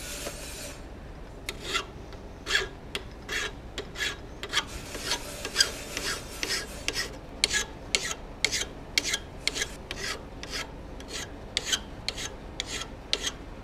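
Hand file rasping back and forth across the bevel of a 4142 steel hot-cut chisel clamped in a vise, shaping and rounding the cutting edge's faces. After a brief hiss at the start, short strokes follow in a quick, even run of about two or three a second.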